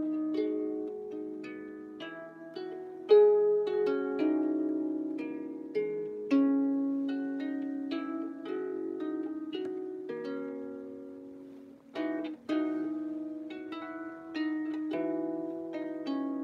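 Out-of-tune harp played as plucked single notes and chords, each left to ring and overlap the next at an unhurried, uneven pace.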